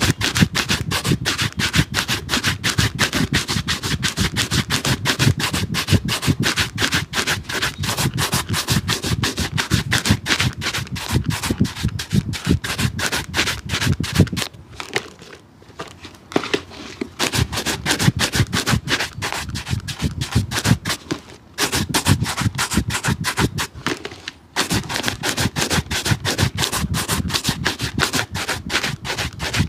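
Rapid back-and-forth scrubbing of a stiff brush on a shoe, many strokes a second. It stops for a couple of seconds about halfway and twice briefly later on.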